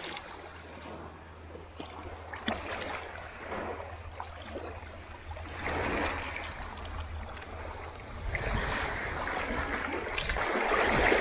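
Shallow water splashing and sloshing around a wading person handling a large black drum at the surface, swelling louder near the end.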